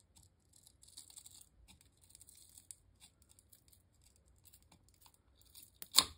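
Small flathead screwdriver prying and scraping under the front bezel of a ToolkitRC P200 bench power supply as the bezel is peeled back: scattered scratchy scraping, then one sharp click about six seconds in.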